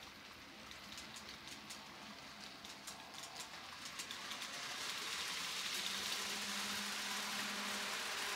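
N gauge model Class 43 HST train running on the layout track: a steady rolling hiss with rapid clicks of the wheels over rail joints and pointwork. From about halfway it grows louder, with a steady motor hum added near the end.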